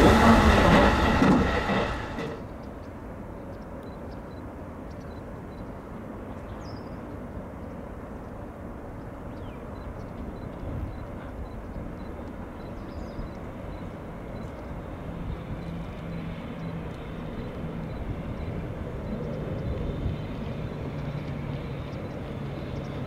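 Loud train noise cuts off abruptly about two seconds in. It gives way to the quieter, steady rumble of a distant freight train approaching behind an EF65 electric locomotive, growing a little louder, with a low steady hum coming in over the second half.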